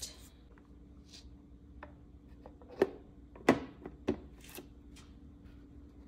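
Several sharp clicks and knocks of a drip coffee maker and its things being handled, the loudest about three and a half seconds in, over a faint steady hum.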